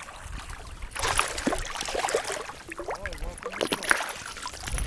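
Irregular water splashing and sloshing from a hooked largemouth bass thrashing at the surface during the fight, starting about a second in. Faint voices in the background.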